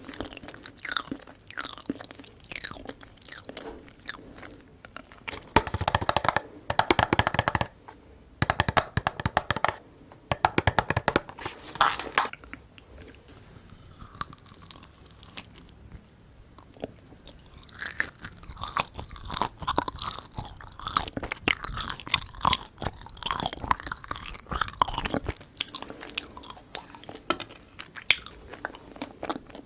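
Close-miked eating sounds: a mouth chewing and crunching sticky Korean sweets, in dense crackly runs that are loudest around six to twelve seconds in, ease off for a few seconds, then pick up again.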